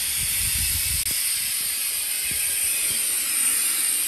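Compressed air hissing steadily from a badly leaking air brake relay valve on the front drive axle of a 1987 GMC General truck. A few soft knocks come in the first second.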